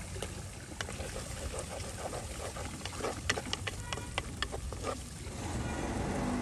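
Wooden spoon stirring fried shallots, curry leaves and cashews in a clay pot, giving scattered clicks and scrapes against the pot that come thickest in the second half. A steady low rumble runs underneath and grows louder near the end.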